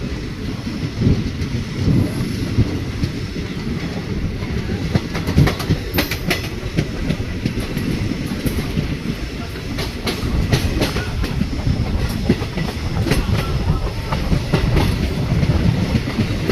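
Train rolling along the track with a steady low rumble; from about six seconds in, the wheels click sharply and repeatedly over rail joints.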